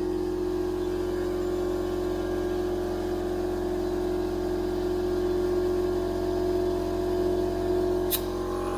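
CFMoto CForce 800 ATV's V-twin engine idling steadily, with one sharp click near the end.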